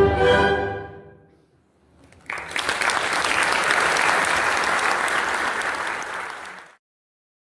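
A concert band's final held chord rings out and dies away over about a second and a half. After a short silence the audience applauds, and the applause cuts off suddenly near the end.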